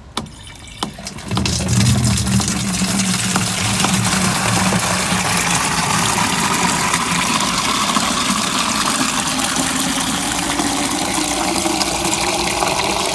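Rainwater gushing from a tank's white plastic outlet pipe into a plastic watering can, starting about a second in. The pitch of the filling slowly rises as the can fills.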